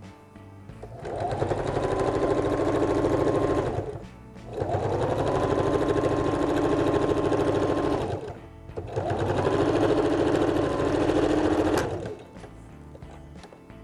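Electric sewing machine stitching through fabric in three runs of about three seconds each, with short pauses between them; at the start of each run the motor's pitch rises as it gets up to speed, and it drops away as it stops.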